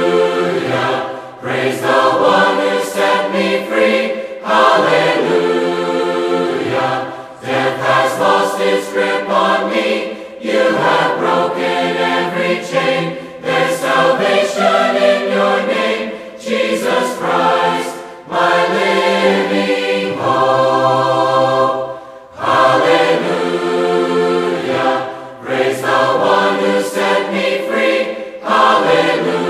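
Mixed choir of men and women singing together, in phrases of a few seconds with brief breaks between them, with one long held chord about two-thirds of the way through.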